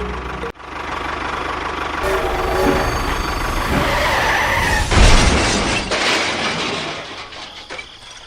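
A small engine running with rough mechanical noise, a loud crash about five seconds in, then fading away.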